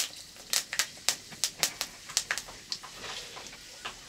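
Firewood crackling in a clay cooking stove: sharp, irregular pops, several a second, thinning out briefly about three seconds in.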